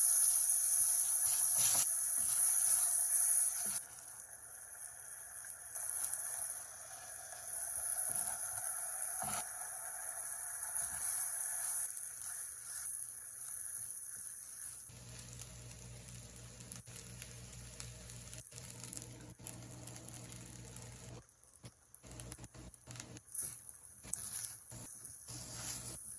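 Food sizzling in a hot frying pan. It is loudest for the first few seconds, then drops and comes back in waves, thinning out toward the end into quieter crackles and clicks.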